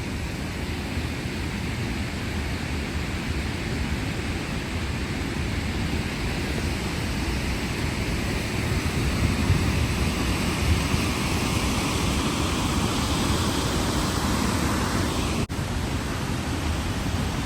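Waterfall rushing with a steady, even roar, briefly cutting out near the end.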